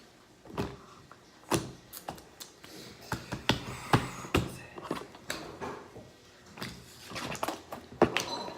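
Slime being squished and worked by hand, giving irregular sharp clicks and pops.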